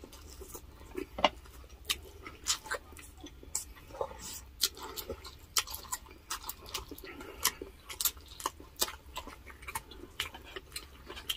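Close-miked eating sounds of people chewing grilled chicken with their hands: irregular wet clicks and smacks of chewing and lips, a couple a second.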